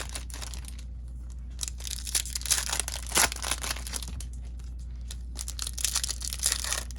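Foil wrappers of Topps Chrome trading card packs being torn open and crinkled, in several bursts with short pauses between.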